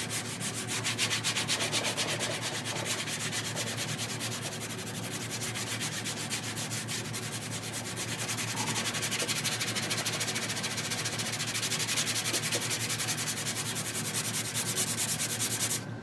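Sandpaper on a hand sanding block rasping over body filler on a truck's patched body panel, in quick, even back-and-forth strokes. This is the shaping stage that levels the filler's rough spots.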